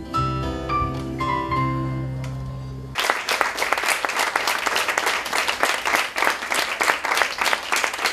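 A folk band of acoustic guitar, keyboard and bass guitar plays the final held chords of a song, fading away; about three seconds in, audience applause starts abruptly and carries on steadily.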